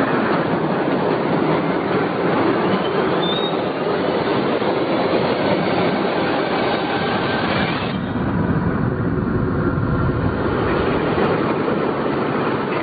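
Blizzard wind blowing hard: a loud, steady rush of noise that turns deeper and duller about eight seconds in.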